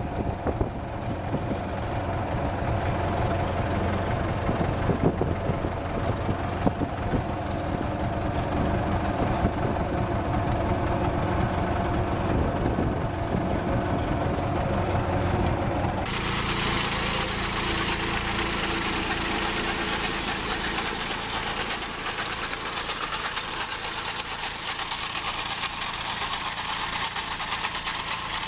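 Tractor engine running steadily under load, pulling a seedling transplanter. About sixteen seconds in, the sound cuts abruptly to a different small tractor engine running, with more hiss.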